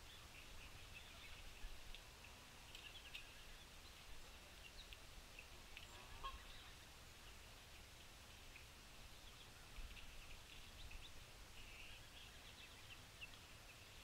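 Faint outdoor ambience of scattered soft bird chirps and ticks over a low rumble.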